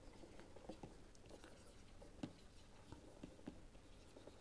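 Faint taps and scratches of a stylus writing on a pen tablet, with irregular light ticks and one louder tap a little over two seconds in.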